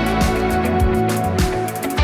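Background music: a guitar-led pop track with a steady drum beat.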